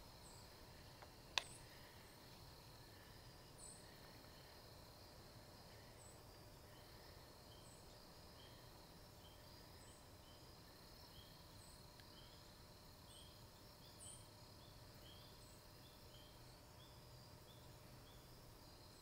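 Quiet outdoor field ambience with faint, thin, high-pitched chirps every second or two, and from about twelve seconds in a run of short, faint peeps. A single sharp click sounds about a second and a half in.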